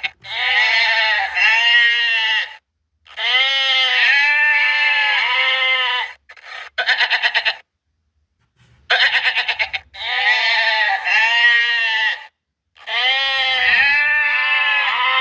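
Goats bleating: a series of about six long, wavering, high-pitched bleats, some opening with a quick quavering tremolo, separated by short pauses.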